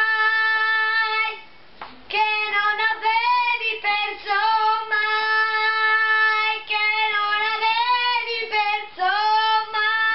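A young boy singing solo and unaccompanied, holding long high notes, with a short pause for breath just before two seconds in.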